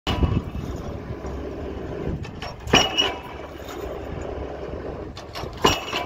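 Excavator-mounted pile hammer striking a square concrete pile: three heavy blows with a metallic ring, roughly every three seconds, each led by a couple of lighter clanks, over the excavator's engine running steadily.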